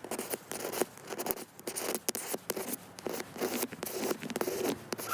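Razor blade held upright scraping cured windshield-repair resin off the glass in a series of short scraping strokes.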